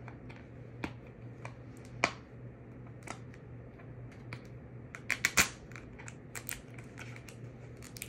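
Scattered clicks and scratchy ticks of fingernails picking at a sticker seal on a plastic DVD case, with a quick cluster of clicks about five seconds in, over a faint low hum.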